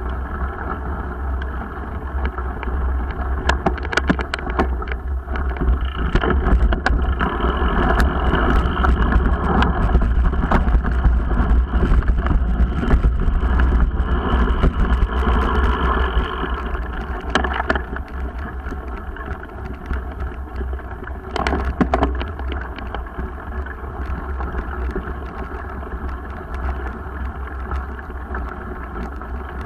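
Onboard ride noise from a mountain bike on a rough dirt trail: a heavy steady rumble and buffeting on the action camera's microphone, with scattered knocks and clicks from bumps and the bike's rattle. It is loudest and roughest through the middle stretch and eases off in the last third.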